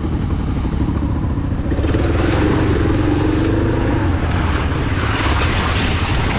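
Adventure motorcycle being ridden on a gravel road: the engine runs steadily under a rushing noise, which grows louder about two seconds in.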